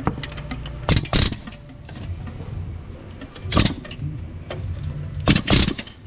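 Pneumatic air hammer fired in three short bursts through a fan-nut tool, trying to break loose the tight 36 mm fan nut on a 5.7 HEMI. A steady low hum runs underneath.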